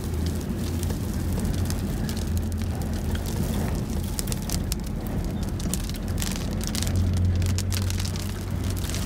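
Wind-blown dust-storm grit and drops hitting the windscreen and body of a Toyota in many sharp ticks, heard from inside the cabin over a steady low rumble of wind and the moving vehicle.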